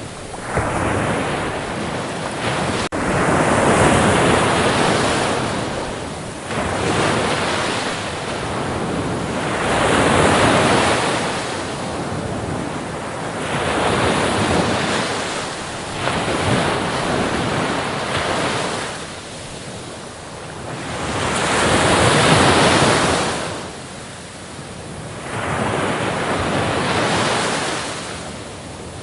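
Sea waves breaking and washing onto the shore, the surf swelling and ebbing in slow repeated surges about every four to six seconds.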